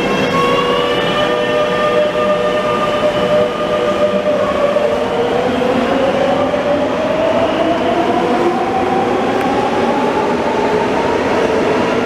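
Madrid Metro electric train pulling out of the platform: a steady electric whine that, from about five seconds in, rises smoothly in pitch as the train gathers speed, over the constant rumble of the wheels on the rails.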